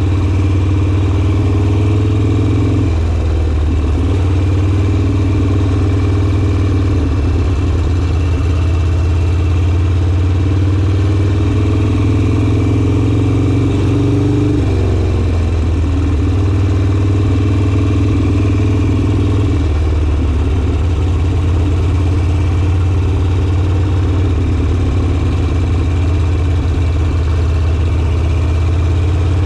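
Harley-Davidson Sportster's air-cooled V-twin engine running while riding, its pitch rising and dropping every few seconds as the throttle and gears change.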